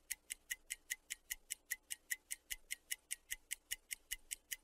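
Even, fast clock-like ticking, about five light ticks a second: a timer effect filling the pause for the listener to repeat the phrase.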